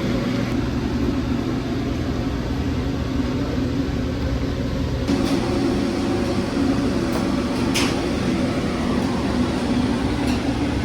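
Steady machine hum with a low drone, shifting slightly about halfway through, with a few faint clicks.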